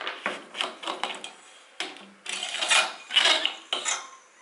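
Irregular metallic knocks, clatter and scraping as a motorcycle fork leg is handled and worked on during disassembly, about a dozen strokes, a few of them drawn out.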